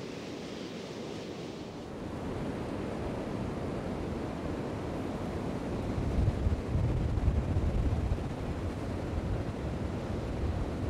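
Sea surf washing onto a sand beach in a steady noisy rush, swelling louder for a couple of seconds about six seconds in.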